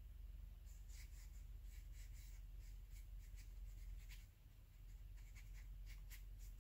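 Flat watercolour brush stroking across damp watercolour sketchbook paper, blending a blue wash: faint, irregular scratchy brushstrokes over a steady low hum.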